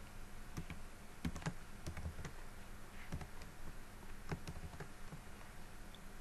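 Typing on a computer keyboard: irregular keystrokes, a few in quick succession and then short pauses.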